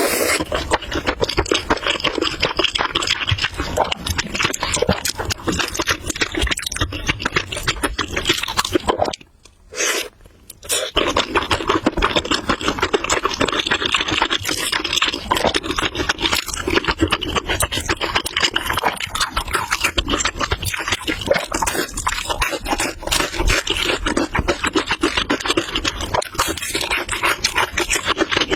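Close-miked noodle eating: a dense, continuous run of wet chewing smacks and clicks, with a short pause about nine seconds in.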